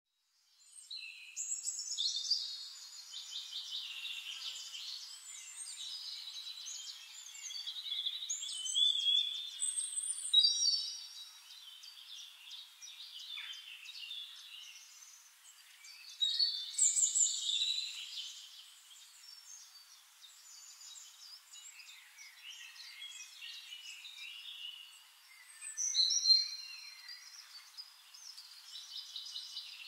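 Songbirds singing in a calm forest chorus: several birds' varied, overlapping high chirping songs come in phrases every few seconds, with no rumble or wind underneath.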